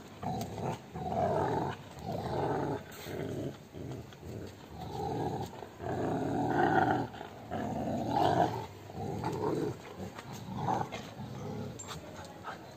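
Rottweiler growling in a run of short, rough bursts while it tugs on a rope in a tug-of-war game. The growls weaken near the end.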